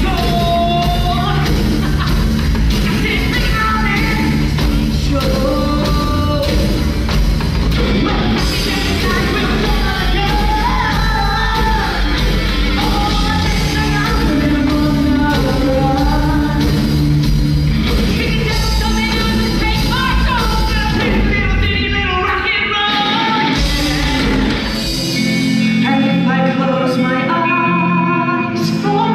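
Loud rock song with a singing voice over bass and drums; the bass and drums drop out near the end, leaving voice and guitar.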